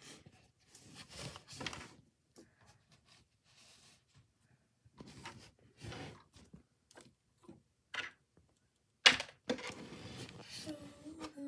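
Handling noises: rustling and light knocks as a phone camera is set down and a stretched canvas is put on the table, with one sharp knock about nine seconds in.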